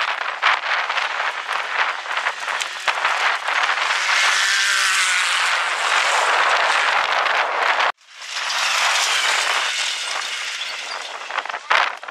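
Off-road race vehicle's engine running hard as it passes close by, its pitch rising and falling under a heavy rushing noise. The sound breaks off suddenly for a moment about eight seconds in, then the rushing noise resumes.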